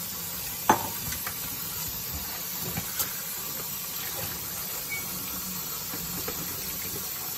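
Tap water running steadily into a stainless steel kitchen sink as ceramic mugs are rinsed, with a sharp clink of a mug being handled about a second in and a smaller one around three seconds.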